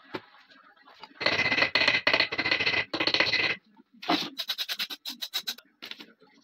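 Small steel shotgun lock and trigger parts jangling and clinking as they are handled. A dense metallic rattle lasts about two seconds, then a quick run of clicks comes at about six a second.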